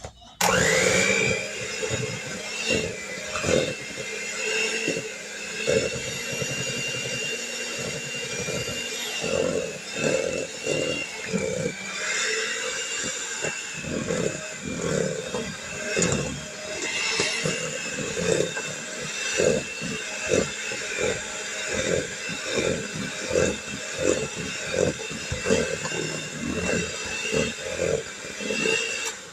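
Electric kitchen mixer switched on, its motor whining up to a steady speed, then running as it beats a peanut butter mixture, with repeated knocks from the beaters in the bowl.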